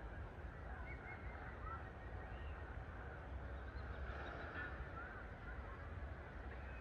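Scattered short calls from several birds over a steady low rumble of distant noise.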